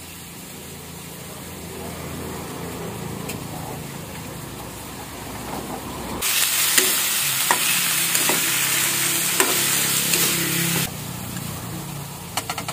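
Pieces of lechon (roast pork) sizzling in their own rendered fat in a pan on a gas stove, stirred with a metal spatula that scrapes against the pan now and then. About six seconds in, a much louder steady hiss cuts in, then stops suddenly about four seconds later.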